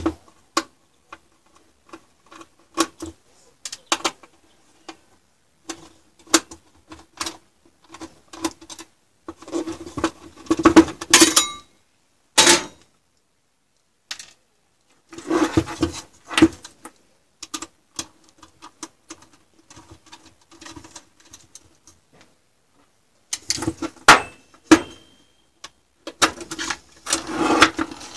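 Sheet-metal case of an ATX PC power supply being unscrewed and opened by hand: many sharp clicks and metallic clinks from the screwdriver, screws and case, with longer spells of rattling and scraping as the cover is worked loose and taken off.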